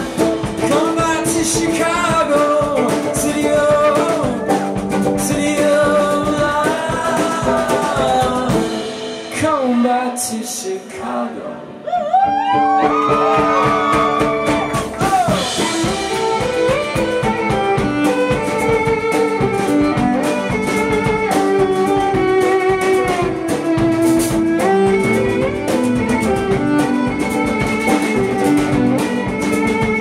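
Live song: a male voice sings over plucked (pizzicato) violin. About nine seconds in there is a brief quieter stretch of gliding notes. After that, bowed violin plays sustained melody lines over a steady, repeating plucked pattern.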